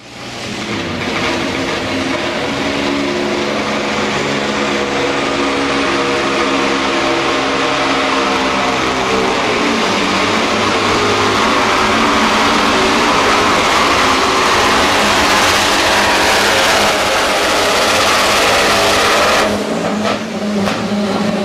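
Diesel engine of a Volvo pulling truck running flat out under load as it drags a weight sled, with a loud, rising roar. The engine note drops away suddenly about two seconds before the end.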